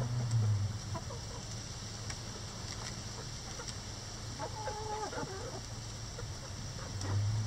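Backyard hens clucking while pecking at a hanging cabbage, with one drawn-out call a little past halfway. A low hum is heard at the start and again near the end.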